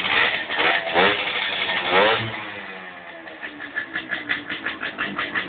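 Zundapp EFS 220m moped's small two-stroke engine revved with rising pitch for about two seconds, then dropping back to a steady, rapidly pulsing idle.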